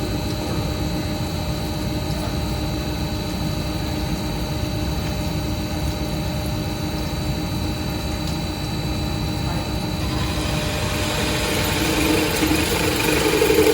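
CNC drilling special-purpose machine running, a steady hum with a thin high whine. From about ten seconds in it gets louder and rougher, with new tones climbing in pitch.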